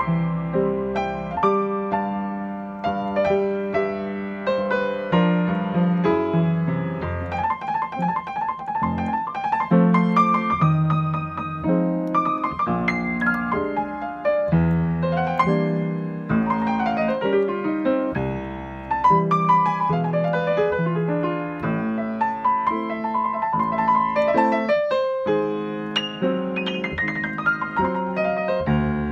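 Yamaha grand piano played solo: a melody over sustained bass notes, with runs of quick repeated higher notes about a third of the way through and a short pause before the playing resumes about two-thirds in.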